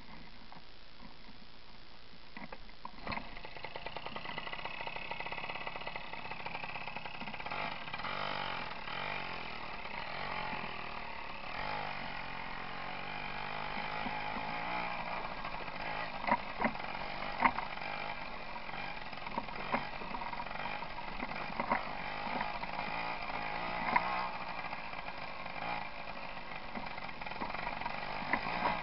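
Tomos moped's small two-stroke engine picking up about three seconds in, then running and rising and falling in pitch as it is ridden, with sharp knocks from the rough gravel track from about halfway on.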